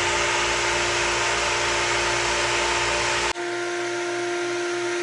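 Vintage SuperB grain dryer running: a steady machine drone with a constant hum. A little over three seconds in, the low rumble drops away abruptly and the hum carries on.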